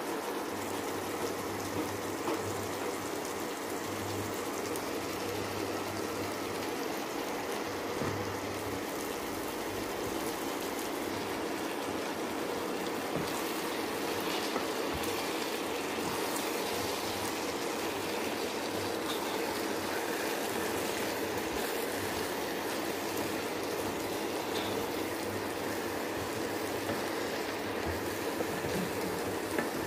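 Eggplant curry sizzling in a pan, a steady hiss, with a few light knocks of a wooden spatula stirring it in places, the last near the end.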